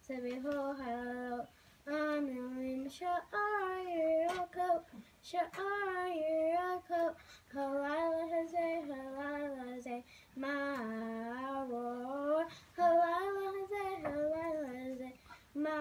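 A young girl singing a Passover song solo and unaccompanied, in short phrases of held, gently wavering notes with brief breaths between them.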